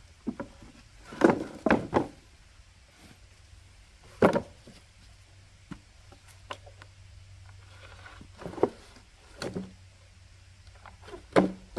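Bamboo poles knocking and clattering against one another as they are lifted and laid on a pile: a string of separate wooden knocks at irregular intervals, the loudest about a second in and about four seconds in.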